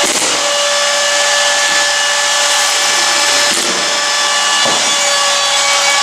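Steady machine drone: an electric motor's even whine over a rushing hiss, running without a break.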